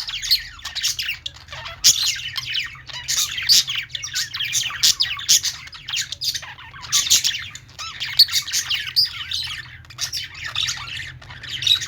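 Many budgerigars chattering at once, with overlapping quick warbles and chirps and harsh squawks, without pause.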